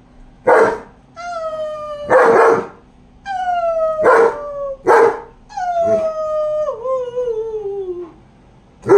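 German Shepherd dog howling and barking: three drawn-out howls that slide down in pitch, the last and longest falling steadily for about two and a half seconds, with five sharp barks between and after them.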